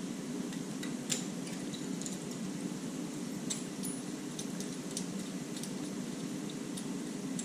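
Several light, scattered metallic clicks and clinks as steel bolts are handled and knocked against each other, over a steady low hum of room noise.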